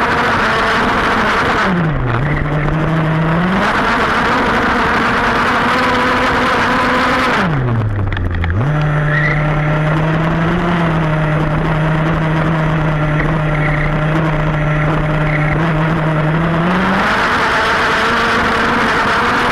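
Petrol RC car's small two-stroke engine running at high revs, heard close up from on board. The pitch dips briefly about two seconds in and falls sharply about eight seconds in as the throttle is lifted, then comes back up and holds steady before rising again near the end.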